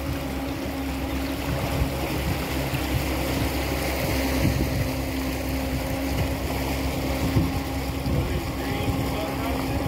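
Boat engine running steadily, a constant drone with a steady low hum, with wind buffeting the microphone.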